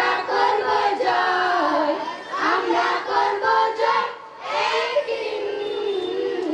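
A group of children singing together into handheld microphones, with a brief pause about four seconds in.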